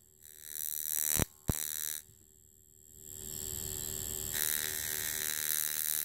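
High-voltage discharge from a capacitor, spark gap and electrodes in magnetite sand, buzzing steadily. It cuts out briefly a little after a second in and goes quiet for about a second around two seconds in before it picks up again, as the electrodes are moved.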